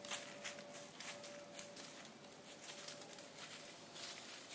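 Faint, irregular crunching of steps in dry leaf litter, a whitetail deer walking in toward the stand, with a thin steady tone behind it.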